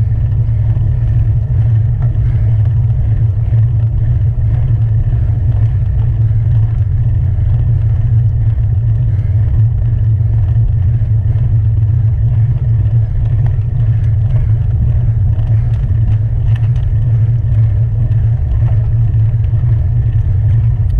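Steady low wind rumble buffeting the microphone of an action camera mounted on a road bike's handlebars as the bike rides along a paved road.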